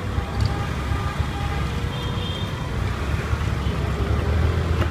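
Steady rumble of riding on a moving motorbike: engine and road noise mixed with low wind buffeting on the microphone.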